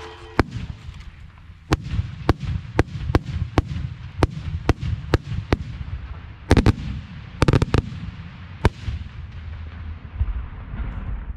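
Fireworks shells going off at close range: a rapid string of sharp bangs, about two a second, with two louder clusters of reports about two-thirds of the way in, over a steady low rumble.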